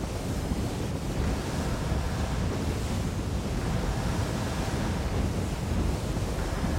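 Steady, deep roar of a burning oil well blowout, its flames and the water jets aimed at it making one unbroken rush of noise that is heaviest in the low end.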